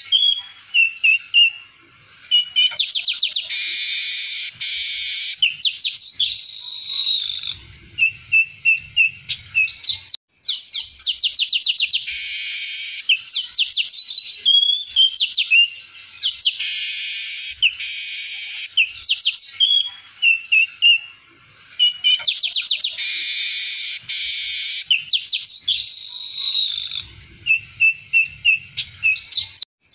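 Streaked weaver singing: a run of buzzy, hissing phrases broken by rapid ticking trills and short whistled notes. The same stretch of song comes round again after about 20 seconds, as in a looped training recording.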